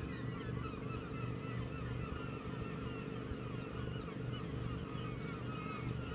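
A flock of waterbirds calling, with many short overlapping calls going on all the time, over a steady low hum.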